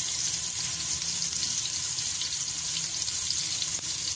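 Small pieces of raw chicken with onion and garlic sizzling steadily in butter in a pot, with a faint crackle, as the chicken is fried until it changes colour.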